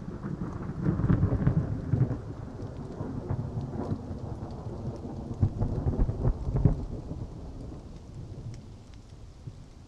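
Thunderstorm sound: rolls of thunder rumbling over steady rain, swelling about a second in and again around six seconds in, then fading away.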